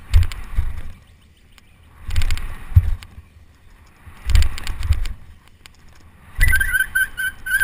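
A bicycle ridden over a run of dirt jumps: rushes of wind and tyre noise with rattling come in surges about every two seconds, with a heavier thump near the three-second mark. A high, broken whistling tone starts near the end.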